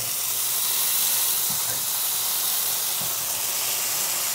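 Oyster mushroom steaks sizzling in oil in a hot cast iron skillet, pressed flat under a second cast iron skillet, giving a steady hiss of steam.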